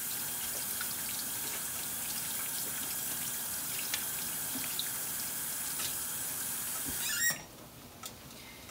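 Water running steadily from a kitchen faucet, then shut off about seven seconds in.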